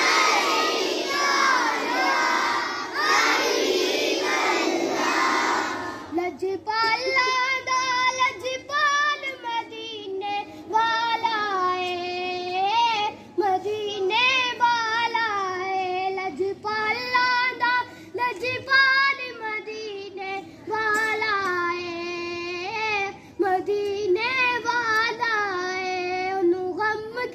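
Many children's voices together for about the first six seconds, then a single child singing a naat unaccompanied: a melodic devotional song in phrases separated by short pauses.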